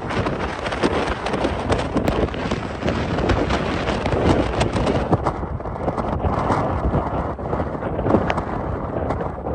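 Hurricane wind and storm-surge waves surging and breaking against stilted beach houses, with wind buffeting the microphone and many sharp knocks and splashes.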